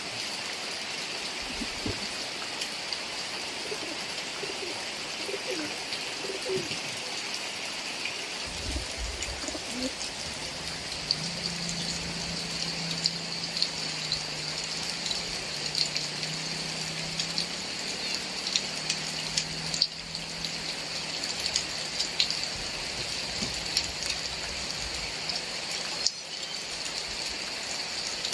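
Heavy rain falling steadily, with many close drops hitting surfaces. About eleven seconds in, a low, broken tone comes and goes for several seconds.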